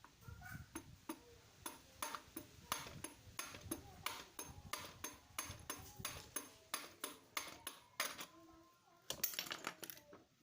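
Quick, irregular metallic clicks and clinks, about three a second, of hand tools and parts on a Vespa engine being taken apart, with a denser flurry of clicks near the end.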